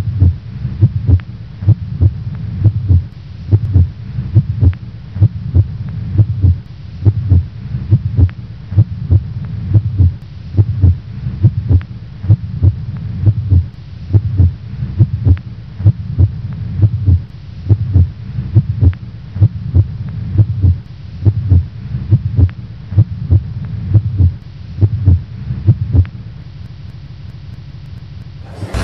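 Heartbeat sound effect: regular low thuds, about two a second, over a steady low hum. The thuds stop about two seconds before the end, leaving only the hum.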